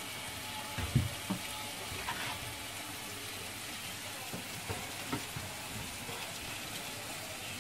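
Steady crackly hiss of water, with a few soft low thumps about a second in.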